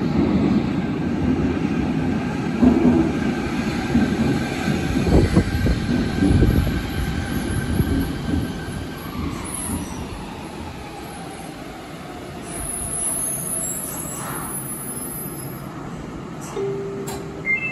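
Fukuoka City Subway 3000A series linear-motor train pulling into the station and braking to a stop. The running rumble is heavy at first and fades as the train slows, while the whine of its VVVF inverter (taken to be Hitachi-made) falls in pitch.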